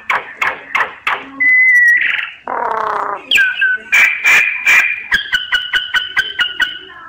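Myna song played as a lure call: a varied run of sharp clicking notes, a held whistle, a harsh rasping note midway, and a fast series of ticking notes with clear whistled tones near the end.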